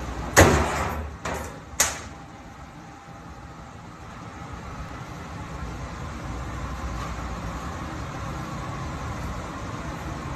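A large slab of raw beef slapped down onto a plastic cutting board on a steel table: one loud thud and two smaller ones within about a second and a half. After that, a steady low hum.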